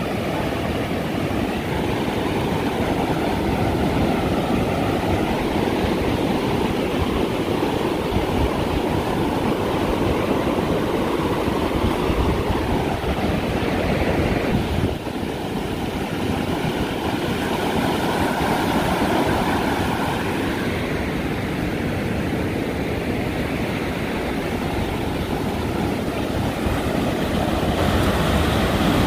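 Ocean surf breaking and washing up a sand beach: a steady rush of waves, with a brief dip about halfway through.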